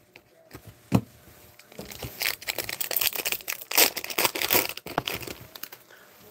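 Foil wrapper of an Upper Deck hockey card pack crinkling and tearing as it is opened: a sharp click about a second in, then dense crackling for about three seconds.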